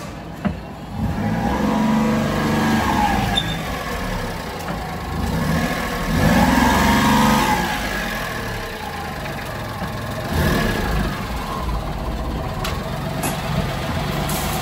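Honda Acty kei truck's small three-cylinder engine revved up and back down twice in the first eight seconds, then idling steadily.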